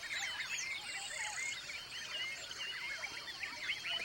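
Dense chorus of many birds chirping and whistling at once, short overlapping calls that rise and fall in pitch, over a steady high background hiss.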